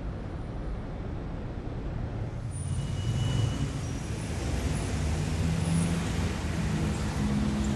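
Road traffic noise: a steady hum of car and bus engines with tyre noise, growing a little louder about two and a half seconds in.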